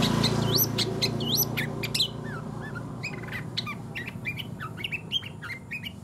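Caged long-tailed shrike (cendet) singing: a run of repeated hooked, rising whistles, then from about two seconds in a fast stream of short, varied chirps, the rolling mimicry song of this bird.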